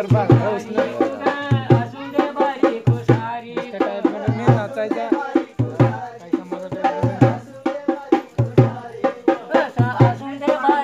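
Live Adivasi Gauri-dance folk music: a drum beats deep strokes in pairs about every second and a half while voices sing over it.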